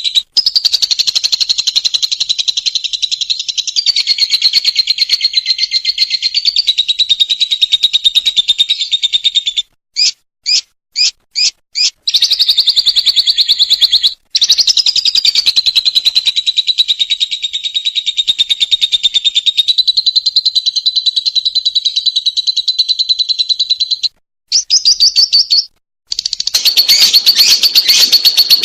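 Lovebird in long 'ngekek' song: a very rapid, high-pitched pulsed chatter held for many seconds at a stretch. It is broken by brief pauses and, about ten seconds in, a handful of short separate bursts. Near the end it grows louder and fuller.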